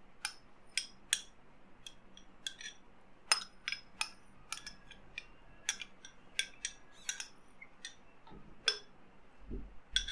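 Metal spoon scraping and tapping against a small bowl as thick strawberry crush is scraped into a blender jar: a run of light, irregular clinks, about two or three a second, with a dull thud near the end.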